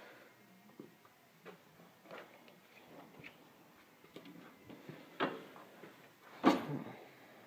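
Lista steel tool cabinet being handled: scattered light clicks and knocks, with two louder clunks about five seconds in and near the end.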